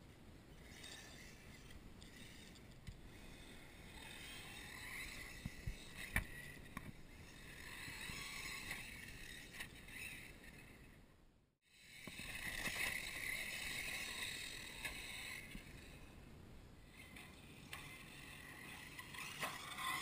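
Radio-controlled car's motor and drivetrain whining as it drives over dirt, swelling and fading as it speeds up and slows, with a few sharp knocks; the sound cuts out briefly about halfway.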